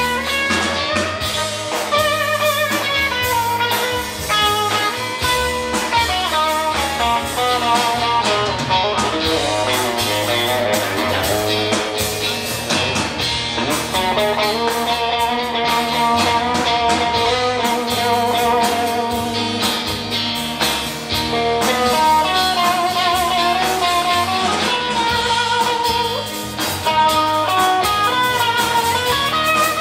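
Live rock band playing: electric guitar lines over bass and drums.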